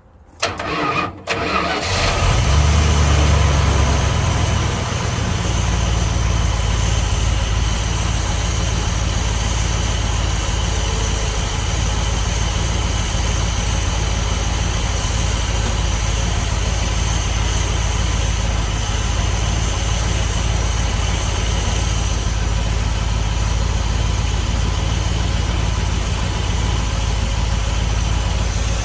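1976 Dodge D200 pickup engine cranking briefly, catching about two seconds in, running fast for a few seconds and then settling to a steady idle. The engine has a freshly fitted distributor cap, rotor, plug wires and spark plugs, and it runs without knocking or missing.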